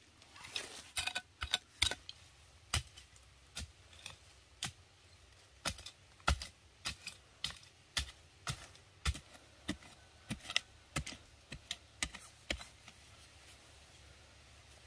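A run of sharp, irregular clicks and snaps, about one or two a second, that stops near the end.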